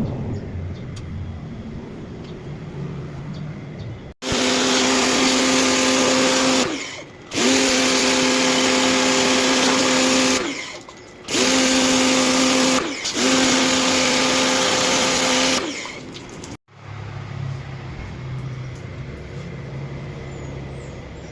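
A motor-driven cleaning machine running in four loud runs with short breaks between them, a steady motor hum under a strong hiss. It starts and cuts off abruptly.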